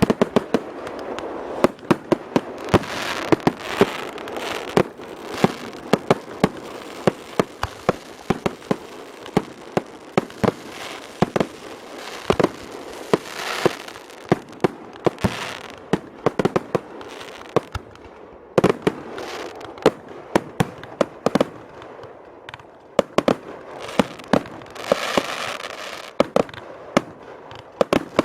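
Fireworks display: a rapid, irregular run of sharp bangs, several a second, with stretches of hissing and crackling between them.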